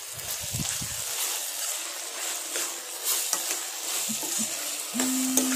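Chopped tomatoes sizzling in hot oil in a ceramic-coated wok as a metal spoon stirs them through fried onions and ginger-garlic paste, with light scrapes and taps of the spoon. A short steady low hum comes in near the end.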